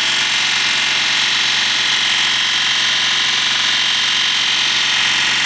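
BMW N52 straight-six engine held steady at about 3,000 rpm to bleed its hydraulic lifters, which are ticking from a lack of oil after the swap and have not yet quietened.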